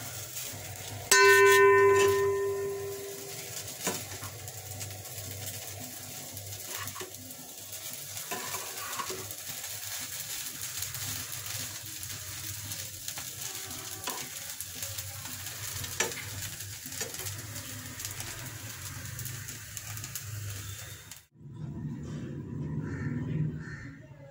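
Sabudana and potatoes sizzling in a non-stick kadai while a spatula stirs them, with scattered light clicks and scrapes of the spatula against the pan. About a second in there is a loud metallic clang that rings on and fades over about two seconds. The sizzling cuts off abruptly near the end.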